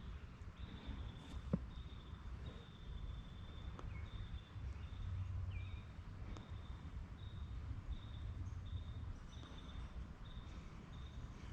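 Insect trilling, a high steady tone broken into repeated short stretches, over a low outdoor rumble, with a few faint clicks.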